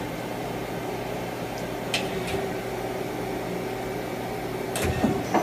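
Yang CK-2A CNC lathe running its axis drives, a steady mechanical hum as the ball screws move the turret slide, sounding healthy in the seller's view. A couple of sharp clicks come about two seconds in, and a louder click with a thump comes near the end.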